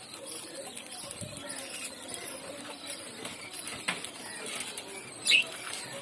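Budgerigars feeding on a bunch of fresh coriander: soft rustling and pecking, a tap just before four seconds, then one short, loud chirp about five seconds in.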